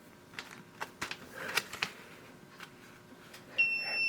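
Several short clicks and taps, then near the end a single electronic beep of about half a second from a milling machine's digital readout (DRO) keypad as a button is pressed.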